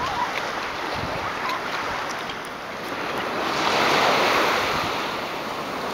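Ocean surf washing onto a sandy beach, one wave swelling and breaking a little past halfway, with wind buffeting the microphone.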